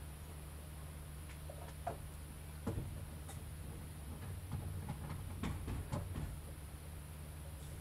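A steady low mechanical hum, with a few light knocks and clicks about two seconds in, a louder knock near three seconds, and a cluster of knocks around five to six seconds.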